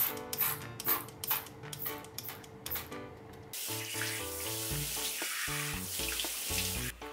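A trigger spray bottle of stain remover squirted about seven times in quick succession, roughly two sprays a second. Then, about halfway through, a kitchen tap runs steadily while someone splashes water on their face at the sink, over background music.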